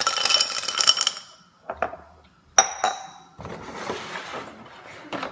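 Ice cubes poured from a metal cup rattling and clinking into a tall drinking glass for about a second. One more sharp glassy clink rings out about two and a half seconds in.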